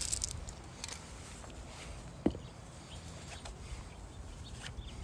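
Low, steady background rumble with a few faint clicks and one short knock a little over two seconds in.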